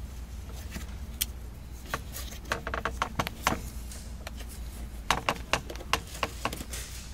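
Scattered short clicks and rustles of hands handling a car soft top's vinyl side window and its Velcro strap at the top stack, in two bunches, about two and a half and five seconds in, over a low steady hum.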